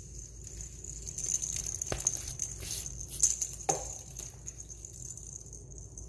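Small ball rolling and rattling across a tile floor, with two sharper knocks about two and three and a half seconds in.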